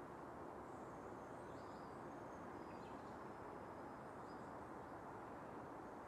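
Outdoor nature ambience: a faint, steady rushing hiss with scattered high, short bird chirps and whistles over it.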